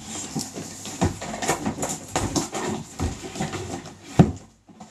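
Cardboard tablet box being handled and opened: the box scraping, rubbing and knocking as it is tipped over and its inner packaging is slid out, with a sharp knock a little after four seconds in.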